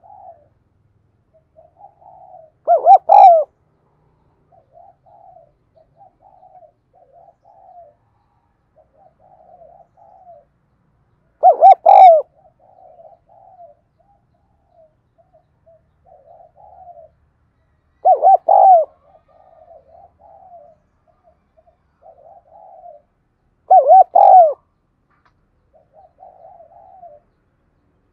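Spotted dove cooing: four loud, short coo phrases spaced about six to nine seconds apart, with soft, quiet cooing in between.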